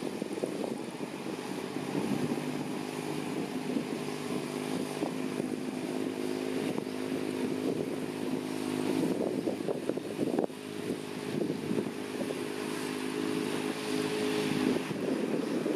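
Six-wheel dump truck's engine running with a steady note, with a short break about ten and a half seconds in.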